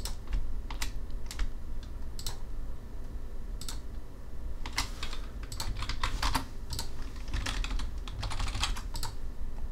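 Computer keyboard keys and mouse buttons clicking: irregular single clicks with a few quick clusters, over a low steady hum.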